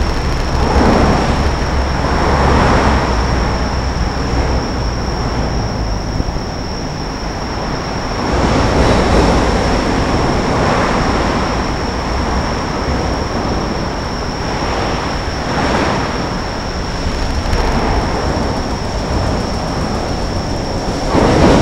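Steady rumble of traffic on Rainbow Bridge, swelling again and again as vehicles pass close, with a thin constant high tone underneath.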